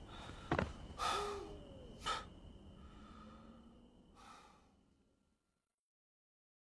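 A man sighing and breathing heavily in distress, a few breathy exhalations about a second or two apart, before the sound fades out to silence about five seconds in.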